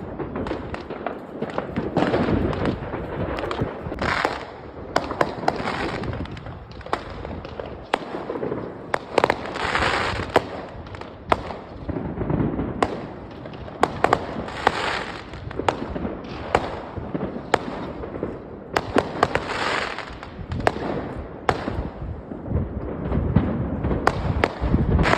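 Large fireworks display: a steady run of sharp bangs and deep booms, with a burst of crackling every few seconds.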